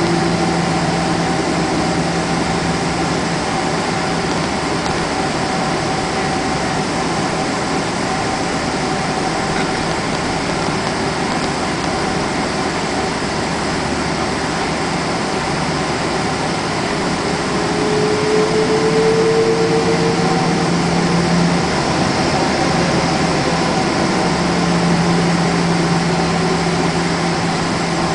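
Steady cabin noise of a Boeing 777 taxiing at low engine power: an even jet engine and airflow drone with a steady hum, and a brief rising whine a little past halfway.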